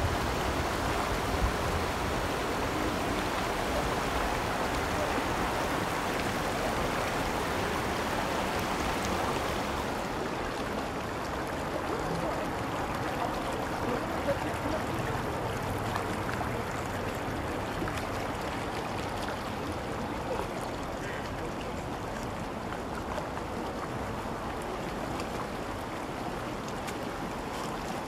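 Shallow, rocky river flowing over stones, a steady rushing of water close to the microphone. It turns slightly duller and quieter about ten seconds in.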